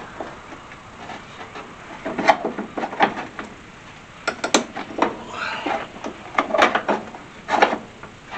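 Irregular metallic knocks, clunks and scrapes, starting about two seconds in, as a single-reservoir brake master cylinder is wiggled and pulled at the firewall while its pushrod stays stuck to the brake pedal.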